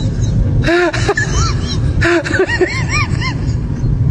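Laughter meme sound effect: a run of short pitched notes that arch up and down, with a few breathy bursts, over a steady low rumble.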